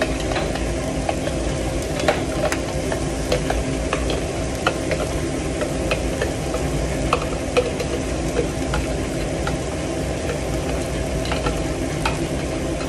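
A fork stirring beaten egg whites in a cup, with irregular light clinks against the sides, over the steady sizzle of hot oil in a frying pan and a constant low hum.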